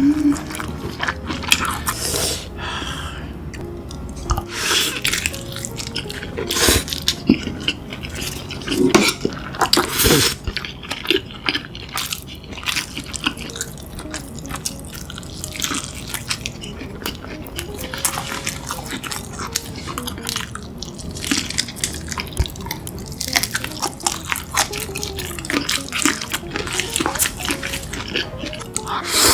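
Close-miked mukbang eating of a saucy seafood boil: irregular wet chewing, slurping and sharp clicks, with small smacks and crunches.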